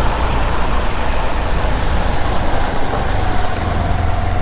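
A motorbike riding along a rain-flooded road: steady engine and low wind rumble, with tyres hissing on the wet surface.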